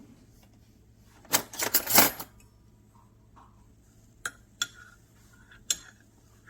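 Kitchenware clattering: a short run of sharp clinks and knocks, as cups, metal parts or utensils are handled around an espresso machine, about a second in. A few single clinks follow.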